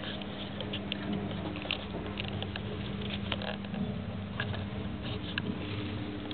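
Degus scurrying about in wood-shavings bedding: irregular light scratches, rustles and clicks of small feet, over a steady low hum.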